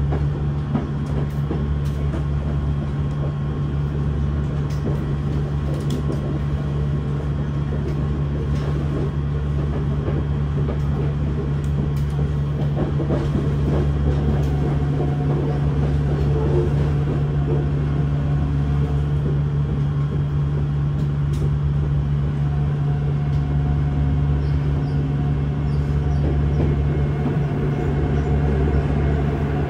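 Running noise of a Yokohama Municipal Subway 3000A-series train with Mitsubishi GTO-VVVF drive, heard from inside the passenger car: a steady low hum and rumble of the moving train.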